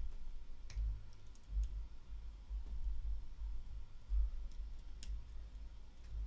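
A few light, sharp clicks of small paintball-marker parts being handled during disassembly, over low, uneven bumping and handling noise.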